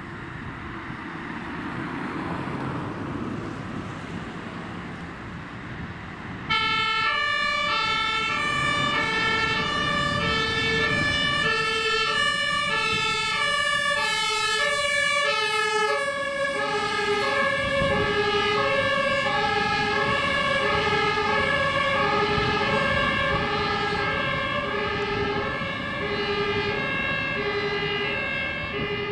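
Road traffic noise, then about six seconds in a fire engine's German two-tone siren (Martinshorn) starts suddenly and loudly, alternating between a high and a low note. About halfway through, its pitch drops slightly as the truck passes.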